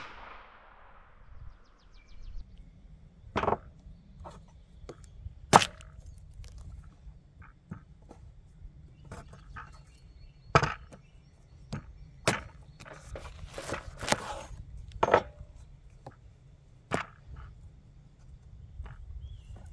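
A long knife cutting through a watermelon on a wooden plank: a series of sharp knocks and thunks as the blade chops through the rind and strikes the wood, with quieter clicks and handling of the melon halves in between.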